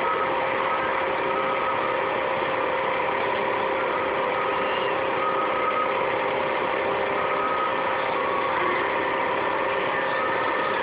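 Steady mechanical hum with a few faint steady tones, even in level throughout.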